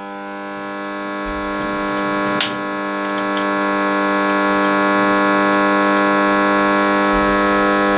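Steady electrical mains hum, a buzzing tone with many overtones, growing louder over the first few seconds and then holding level, with a small click about two and a half seconds in.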